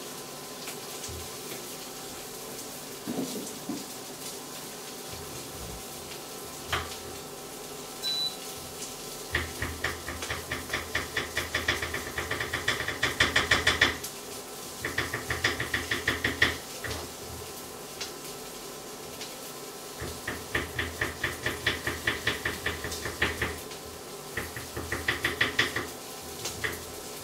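Merguez sausages and white beans frying in a carbon-steel pan: a few single pops, then several bursts of rapid spattering at about four pops a second that come and go, over a faint steady hum.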